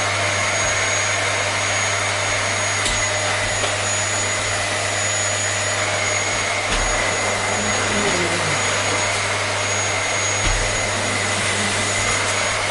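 Vacuum cleaner running steadily: an unbroken rush of air with a steady high motor whine and a low hum beneath it.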